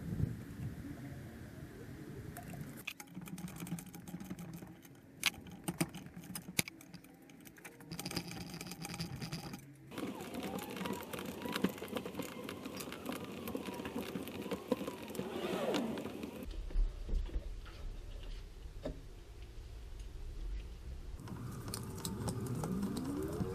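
Intermittent light metallic clicks, clinks and knocks of hand tools and steering parts being handled while new tie rods are assembled and set to length.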